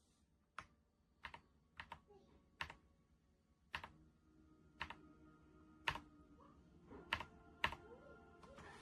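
Keys on a Redragon K668 mechanical keyboard being pressed one at a time, about once a second: separate sharp clacks rather than continuous typing, some heard as a quick double click.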